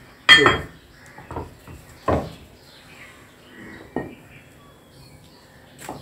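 Dumbbell weight plates being handled, knocking and clinking against each other in four separate knocks a second or two apart, the first one ringing briefly.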